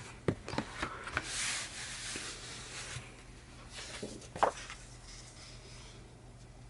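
Heavy paper being handled and rubbed by hand: a few light taps in the first second, a soft brushing rub around a second in, and one sharper crackle about four and a half seconds in.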